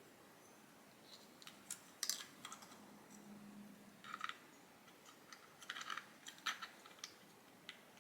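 Faint, scattered small clicks and taps of a Glock 19's polymer grip and backstrap being handled and pressed into place, coming irregularly in small clusters.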